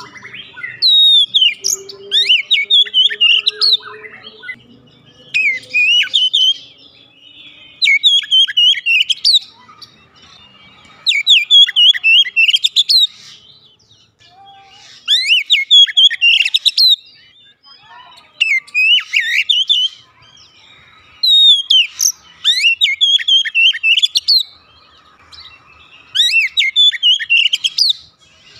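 Oriental magpie-robin singing loudly in full song: about nine fast, varied whistled phrases of a second or two each, full of quick sliding notes, separated by short pauses.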